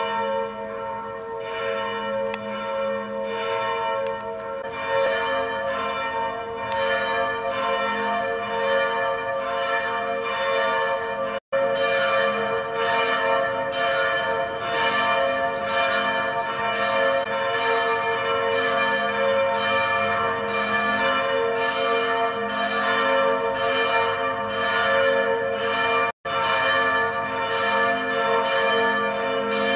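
Church bells of the cathedral's campanile ringing in a continuous peal, strike after strike about two or three times a second, the tones overlapping and ringing on. The sound drops out for an instant twice.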